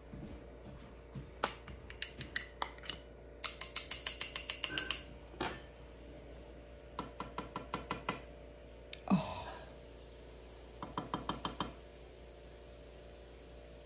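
Runs of quick, light clicks and taps from a makeup powder-pressing mould being worked apart and a freshly pressed powder pan being lifted out of it, the loudest a fast run of about a dozen clicks a few seconds in. A single duller knock follows a few seconds later.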